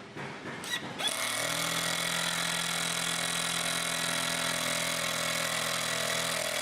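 A few light knocks, then a power drill starts about a second in and runs steadily at an even pitch, driving screws into the cedar log dowel joints.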